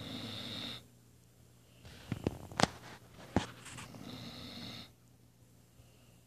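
Weimaraner dog snoring in her sleep: a short snoring breath, then after a pause a longer one broken by a few short, sharp snorts.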